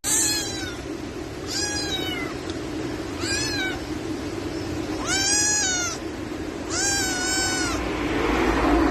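A cat meowing five times, each meow drawn out and rising then falling in pitch, over a steady low hum.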